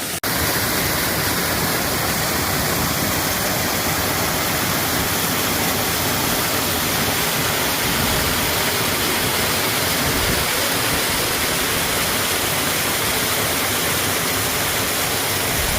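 Waterfall: a steady, even rush of falling water, cutting in abruptly just after the start.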